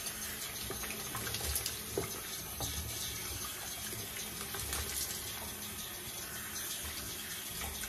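Tap water running into a bathroom sink, a steady splashing hiss with a few small knocks, as a face is rinsed after a shave.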